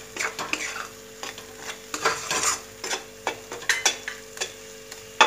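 Spatula scraping and stirring a thick onion and spice masala around a metal kadai in irregular strokes as it sizzles in oil, roasting so the spices lose their raw taste. A sharp knock near the end.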